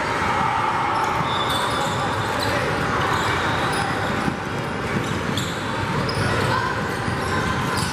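A basketball being dribbled on a hardwood gym floor during play, with short high shoe squeaks over a steady babble of crowd voices echoing in a large gym.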